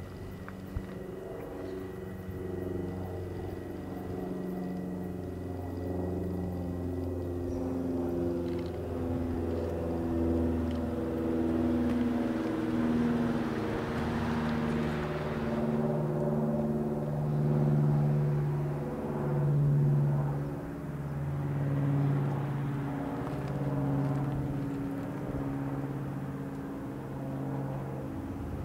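Bombardier M7 electric multiple-unit commuter train arriving. Its propulsion gives a set of hums that shift pitch in steps, first falling and then settling on a lower tone. A hiss of wheels on rail rises and fades about halfway through.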